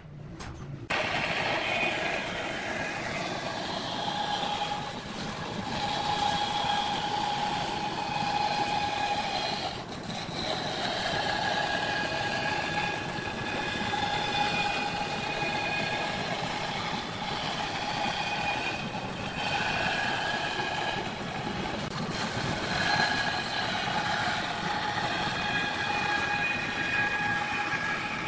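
Bandsaw running and cutting through a thick wooden plank: a steady hum with a whining tone that swells and fades as the blade works through the wood. It starts about a second in.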